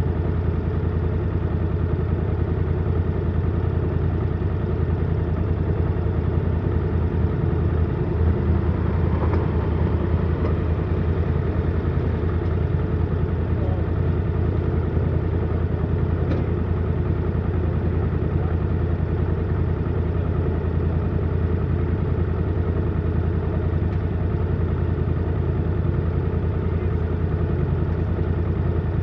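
A vehicle engine idling steadily while stationary, a constant low hum with no revving.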